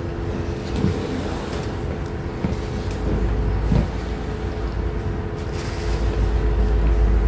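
Steady low mechanical hum with a deep rumble that swells about three seconds in and again near the end, with a few faint knocks.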